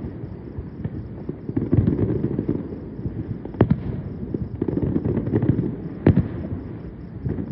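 Fireworks going off: bursts of rumbling crackle, with two sharp bangs about three and a half and six seconds in.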